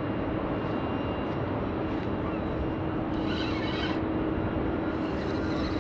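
Wind rumbling on the microphone over a steady low hum, with brief high chirps about three seconds in and again near the end.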